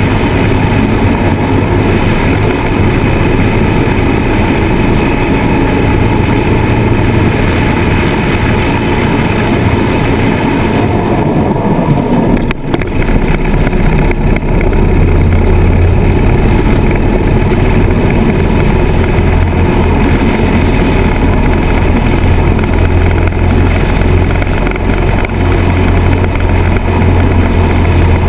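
Harley-Davidson Sportster's air-cooled V-twin engine running at highway cruising speed, with heavy wind rush over the mounted microphone. About halfway through the engine note dips briefly with a short click, then carries on steadily with a stronger low throb.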